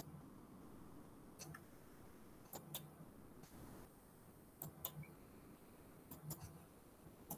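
Faint computer mouse clicks over near silence: about seven short clicks, mostly in close pairs, as the lecturer navigates to an exercise on the computer.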